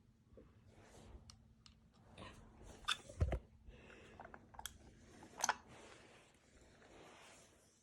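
Toy farm machinery handled by hand: scattered small plastic clicks and light knocks, with a heavier thump about three seconds in.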